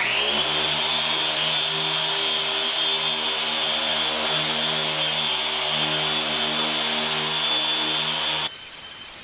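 Handheld electric polisher running steadily, a high motor whine with a lower hum, its buffing pad working rubbing compound into the dull paint of a lawn tractor hood. Near the end the sound drops abruptly to a much quieter level.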